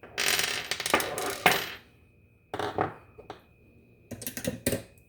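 Small metal parts of an American Lock 1100-series padlock clattering and clinking as its internals are taken loose and dropped out: a dense rattle for the first couple of seconds, then a few shorter clusters of clicks.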